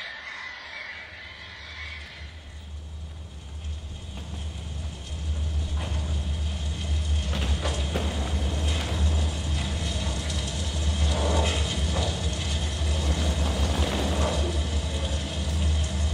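Soundtrack effect of a low mechanical rumble with rattling and clanking, swelling in over the first few seconds and then holding steady, with scattered sharp clicks.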